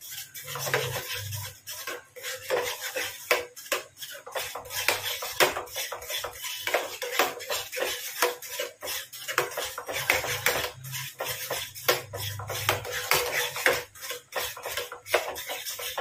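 Spatula stirring thick white sauce of butter, flour and milk in a metal pan: continuous irregular scraping and clinking against the pan, stirred without pause to keep lumps from forming.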